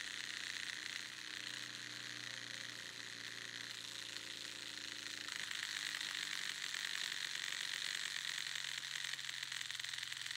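A taut thread driven into standing-wave vibration, with a steady buzz over a low hum. The hum's pitch changes about five seconds in, as the thread shifts from one vibrating loop to two.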